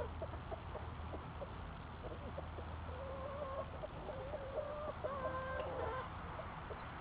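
A flock of chickens clucking as they feed, many short calls with several longer drawn-out calls between about three and six seconds in.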